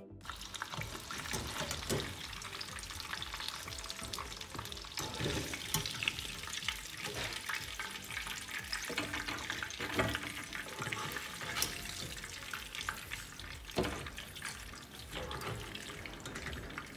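Hot oil sizzling steadily around puli pitha pastries frying in a pan. Several sharp clinks of a wire spider skimmer against the pan are heard as the fried pastries are lifted out.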